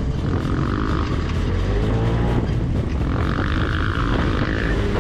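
Side-by-side UTV engine running at trail speed, with heavy low wind rumble on the mounted microphone. Twice a short rush of higher hiss rises over it.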